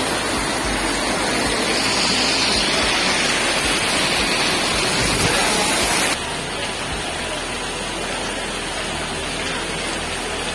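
Heavy monsoon rain pouring onto a flooded street, a steady dense rush of rain on standing water. About six seconds in it changes abruptly to a slightly quieter, duller rush.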